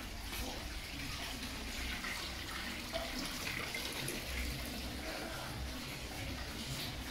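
Water from a small fountain splashing steadily.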